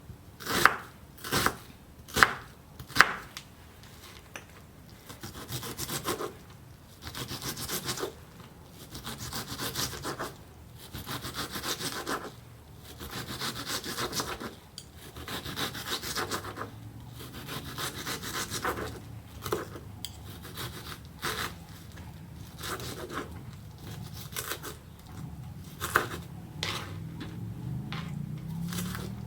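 A knife chopping onion on a chopping board: a few sharp knocks in the first few seconds, then a long run of repeated slicing strokes about a second apart.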